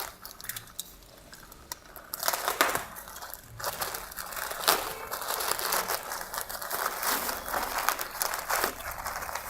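Shipping package being torn open and its wrapping crinkled and crumpled by hand: a few light clicks at first, then from about two seconds in, continuous crackling and tearing with sharp snaps.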